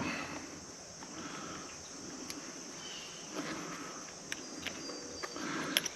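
Quiet outdoor ambience with a faint steady chorus of insects, and a few light clicks scattered through it.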